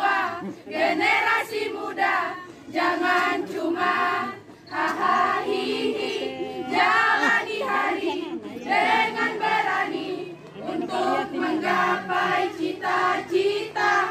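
A group of young women singing a marching song together in unison, in short rhythmic phrases.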